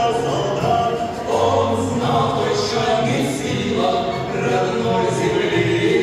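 A choir singing, several voices holding long notes together.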